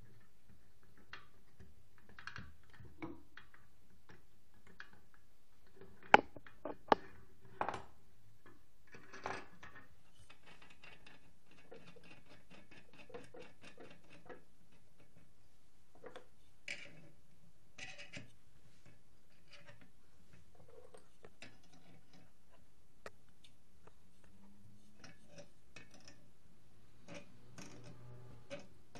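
Scattered small metal clicks and knocks from handling a homemade square-steel-tubing bearing puller and a circular-saw armature on a workbench, with two sharp knocks about six to seven seconds in.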